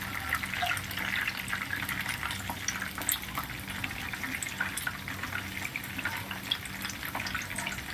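Chicken frying in hot oil: a steady sizzle with scattered crackles and pops.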